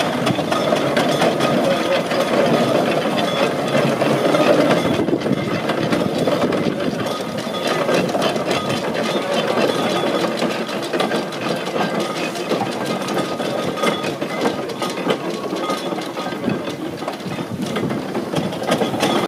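Steam roller running as it is driven across cobbles: its steam engine beats steadily and rapidly, with mechanical clatter.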